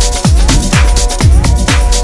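Electronic dance music with a steady four-on-the-floor beat, a booming kick drum about twice a second that drops in pitch on each hit, over held synth chords.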